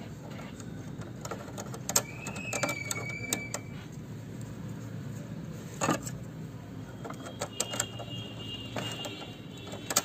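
Scattered clicks and light taps of plastic parts being handled inside an opened inkjet printer, as a piece of plastic is fitted into a sensor, over a steady low hum.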